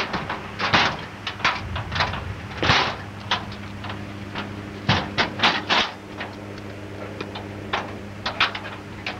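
Ride noise inside a moving vehicle: a steady low hum under irregular clattering knocks and rattles.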